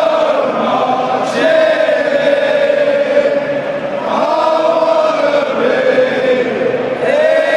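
Football crowd singing a chant in unison, many voices in long drawn-out notes.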